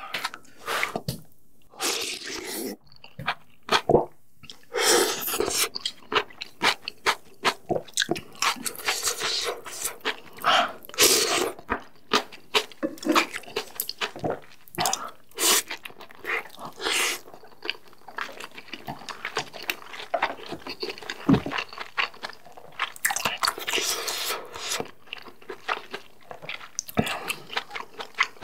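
Close-miked mukbang eating sounds: a person slurping kalguksu noodles and soup and chewing noodles and a dumpling, with a steady run of wet chewing and biting noises and a few longer slurps.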